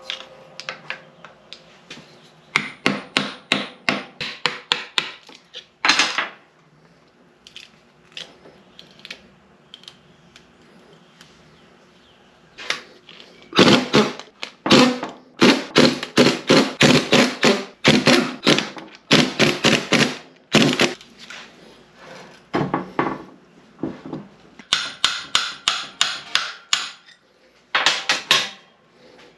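Hammer blows on the metal parts of an NP205 transfer case being torn down. They come in quick runs of several strikes, a few a second, with pauses between the runs and a faint ringing under the heaviest hits.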